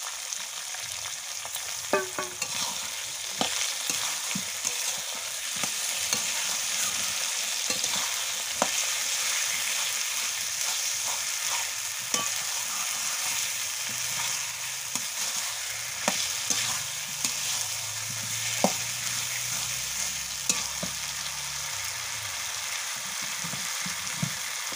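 Spice paste with potatoes, onion and tomato frying in hot oil in a metal kadai while being stirred: a steady sizzle, with a metal spatula scraping and clinking against the pan now and then. This is the masala being fried down (kosha) at the start of a mutton curry.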